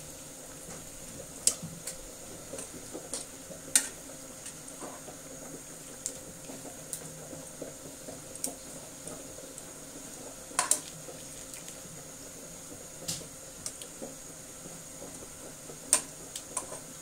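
Water bubbling at a boil in a pan, with stainless steel tongs clicking sharply against the pan and a mesh strainer every few seconds as blanched pechay is lifted out dripping.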